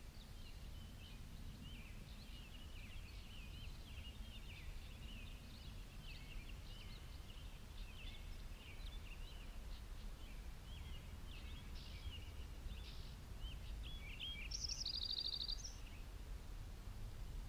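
Small forest birds chirping and twittering on and off, with a short, fast trill of repeated high notes near the end. A steady low rumble sits underneath.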